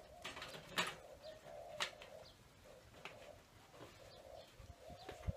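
A dove cooing over and over in the background, with a few sharp knocks and rustles of things being handled. The loudest knocks come about a second in and again about two seconds in.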